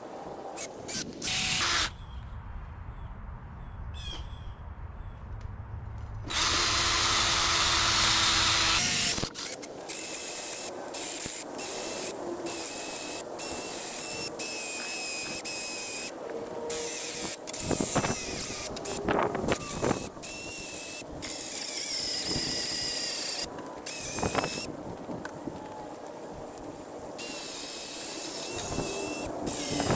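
Cordless drill with a long bit boring a deep hole into the end grain of a 4x4 wooden post. It runs in many short stretches that start and stop abruptly, the loudest a few seconds long about a third of the way in.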